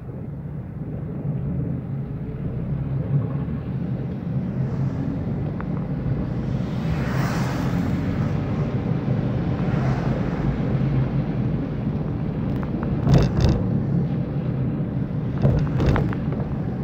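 Car cabin on a wet road: a steady low engine and road hum, with tyre hiss swelling twice. Two sharp knocks a few seconds apart near the end come from the windscreen wiper sweeping.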